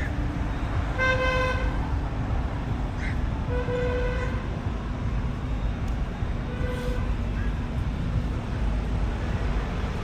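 Three short vehicle horn honks, about a second in, at about three and a half seconds and near seven seconds, the last the shortest, over a steady low rumble of street traffic.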